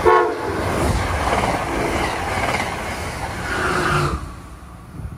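Amtrak Keystone train passing at speed, pushed by an ACS-64 electric locomotive at the rear. It opens with a short horn blast, then a rush of wheel and air noise that cuts off about four seconds in as the end of the train goes by.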